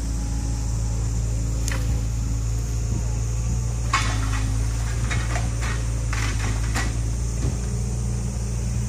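An engine running steadily with a low, even hum. About four seconds in comes a quick series of sharp clicks and knocks.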